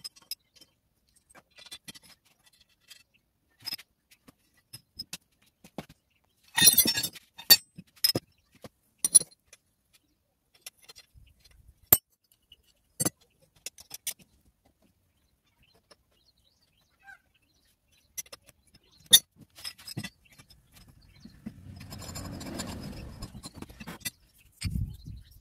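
Scattered metallic clinks and taps as hand-pump parts (the pump rod, nuts and fittings) are handled and struck with a hammer against a brick, the busiest run of taps about seven seconds in. Near the end comes a few seconds of rough, low scraping noise.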